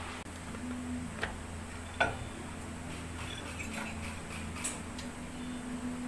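Hand tools clicking and tapping during an engine oil and filter change: a few sharp clicks, about a second apart, the loudest about two seconds in, over a steady low hum.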